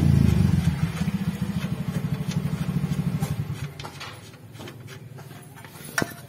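A vehicle engine running with a fast, even pulse, loud at first and fading away over the first few seconds. A sharp click comes near the end.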